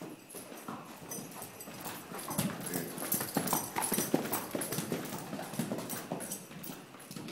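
Hoofbeats of a ridden Tennessee Walking Horse filly, a quick, uneven run of hoof strikes on the floor, loudest around the middle.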